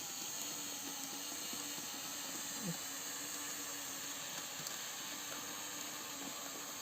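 LEGO Technic L-motors driving a tracked model through its gearing: a steady electric whir with faint tones, as one track climbs over a small obstacle.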